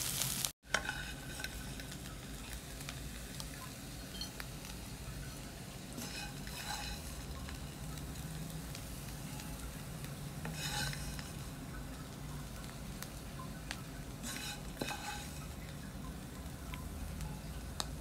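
A spatula stirring and scraping dry-fried vegetables, with short scrapes and light clinks against the vessel about 6, 11 and 15 seconds in, over a faint sizzle and a steady low hum.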